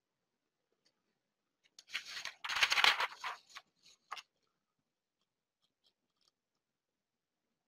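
A brief burst of rustling, crackly handling noise about two seconds in, lasting under two seconds, followed by a single short crackle about four seconds in.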